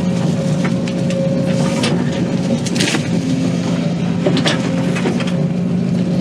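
Excavator diesel engine running steadily, with scattered short knocks and cracks over it.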